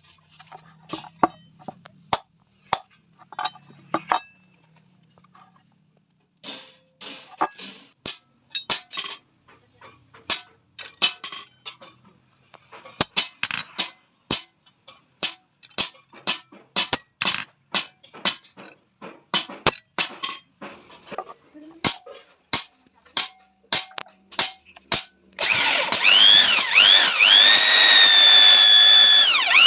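A long run of sharp metal taps and clinks, sparse and irregular at first, then several a second. Near the end a power drill starts up and runs loudly with a whine that dips and rises.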